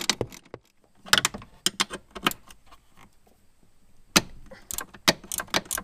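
Hand ratchet clicking in short, irregular runs while backing out the 10 mm bolts that hold a pickup's parking brake pedal assembly. There is a quieter gap of about a second midway, then a faster run of clicks.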